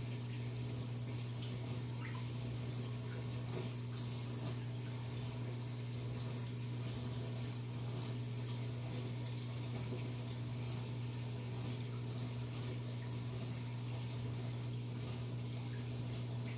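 Reef aquarium's water circulation: a steady rush and trickle of moving water over a constant low hum from its pumps, with a few faint drips.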